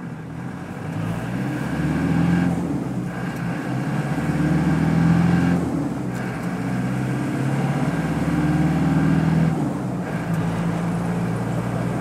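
1988 Land Rover 90's 2.5-litre turbo-diesel four-cylinder heard from inside the uninsulated cabin, pulling hard through the gears. The engine note dips briefly three times as the gears are changed, then builds again.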